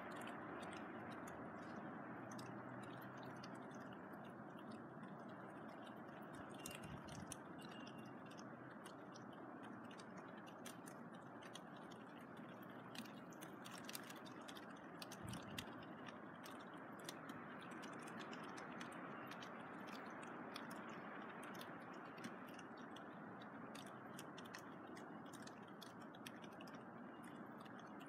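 Faint, steady outdoor background noise with many scattered light ticks, most frequent in the middle stretch.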